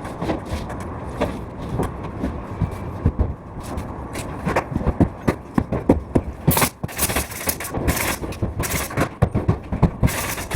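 Construction work noise: a run of irregular sharp knocks and clacks, some in quick clusters, over a steady background of scraping and handling noise.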